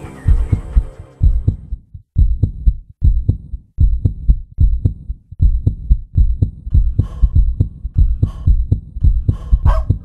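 Heartbeat sound effect: quick, steady low thumps at about three a second, with a higher hiss joining some beats from about seven seconds in.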